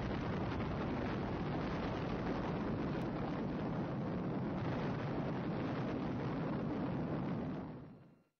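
Steady, deep rumbling roar of a nuclear explosion, fading out near the end.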